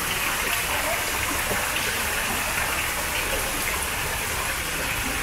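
A steady rush of running water, even and unbroken.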